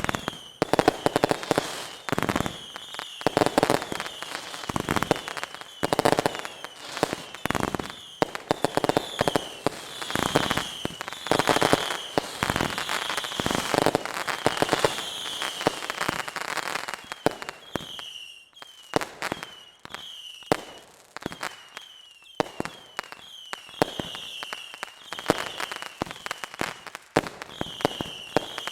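Whistling fireworks going off in a dense barrage: many short high whistles, each dropping slightly in pitch, over rapid bangs and crackling, with a brief lull about two-thirds of the way through.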